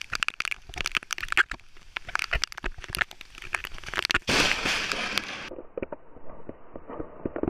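Storm wind and rain crackling against the camera microphone, then about four seconds in a loud, sudden blast lasting about a second: the crack of a lightning strike very close by.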